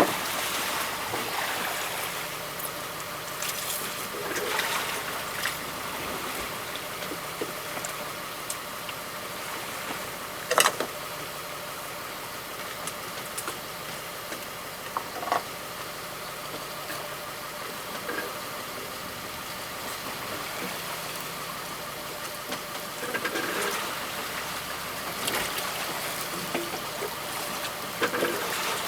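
Boat engine running steadily, with a few sharp knocks, the loudest about ten and fifteen seconds in.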